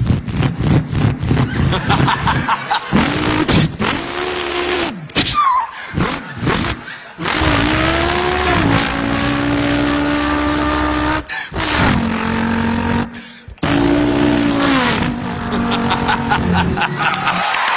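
A man imitating a V8 race car with his mouth. The voiced engine note revs up and drops back several times with short breaks, like gear changes, then holds steadier engine tones in the second half.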